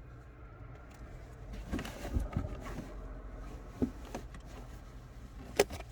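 Light handling noises: a cluster of soft knocks and clicks, then a sharp click near the end, over a steady low hum.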